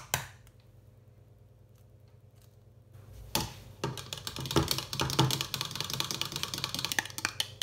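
Small wire hand whisk beating eggs and milk in a plastic measuring cup: a fast, continuous clatter of the wires tapping the cup, starting about three seconds in. Two sharp knocks right at the start.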